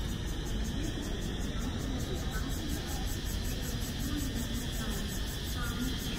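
Steady background hiss with faint, indistinct voices of people.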